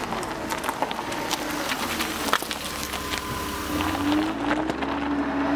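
An engine running and revving, with a steady low rumble, scattered sharp clicks and a rising pitch about four seconds in, mixed with music.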